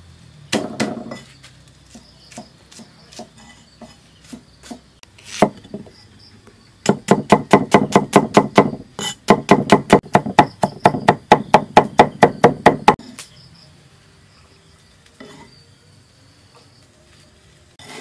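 Cleaver knocking on a thick round wooden chopping block: scattered single chops at first, then fast, even chopping at about six strokes a second for about six seconds while mincing red onion, stopping about thirteen seconds in.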